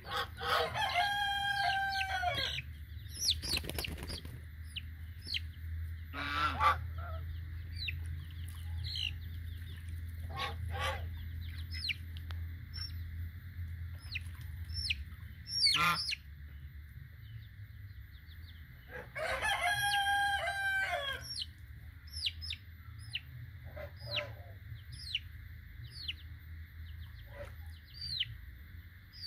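A rooster crowing twice, each crow about two seconds long, once near the start and again about twenty seconds later, over repeated short, high, falling peeps from young chicks.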